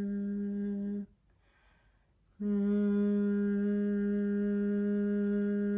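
A woman hums one steady low note with closed lips. About a second in she breaks off for a pause of just over a second, then takes up the same note again and holds it.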